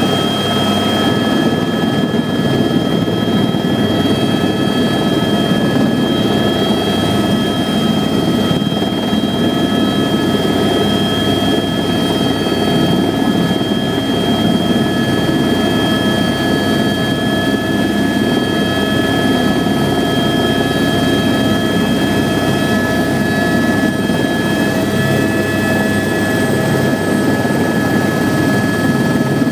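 Helicopter running steadily: a loud, even rotor and engine roar with a steady high turbine whine over it.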